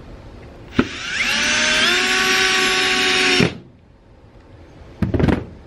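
Cordless drill working on a plastic electrical box: a click, then the motor whines up in pitch and runs steadily for about two and a half seconds before stopping. A short second burst of the drill comes near the end.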